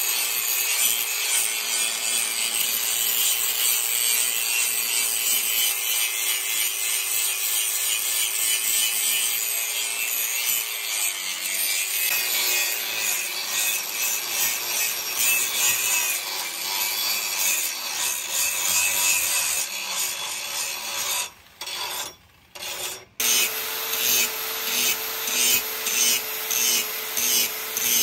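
Electric angle grinder with an abrasive disc grinding the steel of an axe head: a steady motor whine under a harsh grinding hiss, the pitch dipping briefly under load midway. Near the end it cuts out twice, then grinds in short repeated passes, about one and a half a second.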